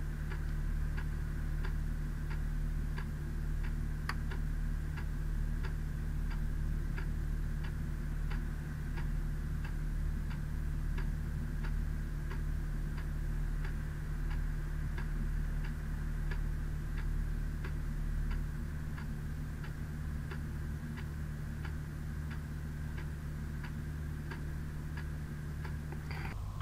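Regular, even ticking, about two ticks a second, over a steady low electrical hum.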